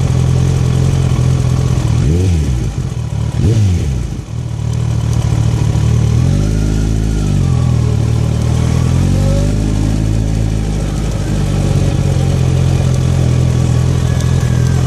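Kawasaki motorcycle engine running at low road speed, heard from the rider's seat, with two quick blips of the throttle a few seconds in and two slower rises and falls in revs later on.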